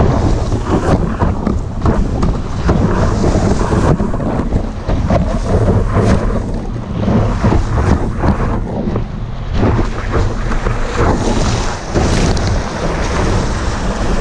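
Wind buffeting a board-mounted camera's microphone, mixed with rushing water and spray as the surfboard planes along a breaking wave.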